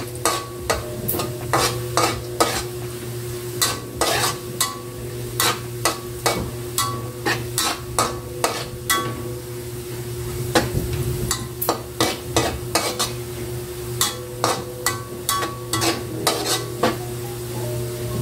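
Metal spatula scraping and clinking against a metal wok as chopped garlic is stir-fried in oil, with a steady sizzle underneath. The strokes come about two or three a second, with a few short pauses; the garlic is nearly golden brown.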